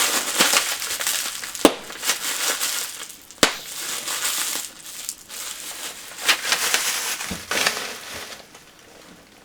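Packaging being handled and crumpled: irregular crinkling and crushing rustles, with two sharp clicks in the first few seconds. It tapers off near the end.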